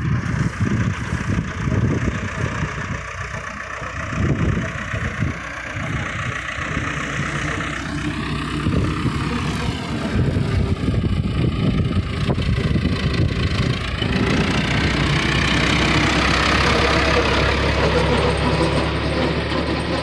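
John Deere 2120 tractor's four-cylinder diesel engine running as the tractor drives by, growing louder as it comes close near the end.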